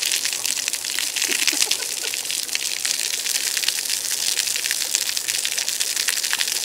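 Garden hose spray nozzle jetting water: a steady hiss with a dense patter of droplets splattering on the wet concrete pool deck.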